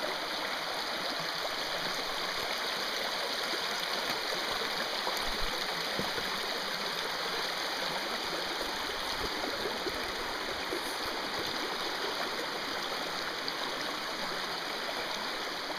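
River water rushing and gurgling over rocks, a steady noise, with one or two faint low knocks about a third of the way in.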